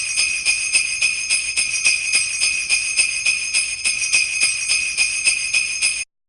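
Sleigh bells shaken in a steady rhythm, about four shakes a second, then cutting off suddenly about six seconds in.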